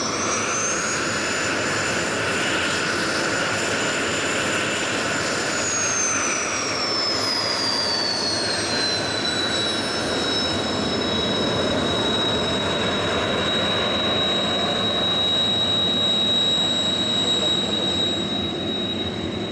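Kawasaki T-4 jet trainer's twin F3 turbofan engines running with a high whine and a rushing roar. The whine rises in the first second as the engines spool up, holds for about five seconds, then falls back over about four seconds to a steady idle pitch as the jet taxis.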